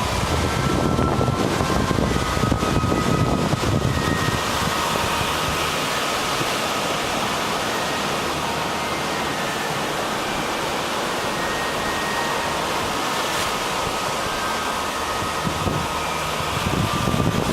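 Steady rushing noise of wind and sea, with wind buffeting the microphone as a low rumble for the first few seconds and again near the end.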